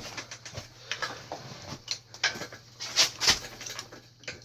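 Irregular clicks, knocks and scrapes of metal bicycle parts being handled as a mountain bike's front fork and headset are fitted back together.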